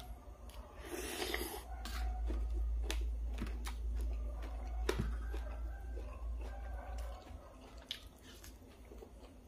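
A man chewing a mouthful of stir-fried field rat and sticky rice: wet, squishy mouth and lip-smacking sounds, with a short hissing burst about a second in and several sharp clicks.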